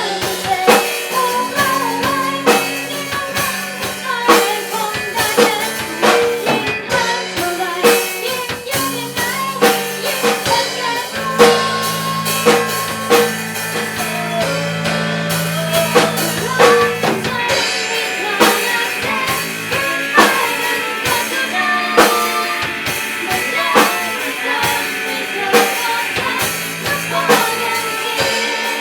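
Band music with a driving drum kit, bass and guitar, and a sung melody over it.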